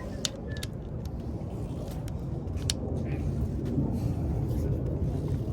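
Scattered sharp metallic clicks and clinks of hand tools and sockets being handled, over a steady low rumble.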